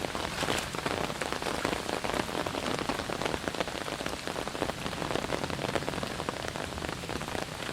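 Steady rain falling, a dense patter of many close drop impacts.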